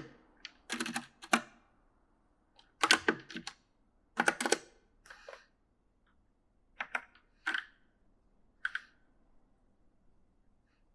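Typing on a mechanical gaming keyboard: short bursts of key clicks that thin out to a few single keystrokes and stop about nine seconds in.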